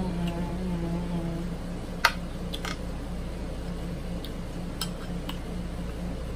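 A closed-mouth "mmm" hum of enjoyment falling in pitch, then a few sharp clicks of mussel shells knocking against the serving plate and the glass sauce cup, the loudest about two seconds in.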